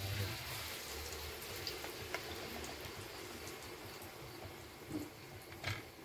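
Battered banana pieces sizzling in hot oil in a wok. The hiss is strongest as they go in and slowly eases off, with a few light clicks of utensils.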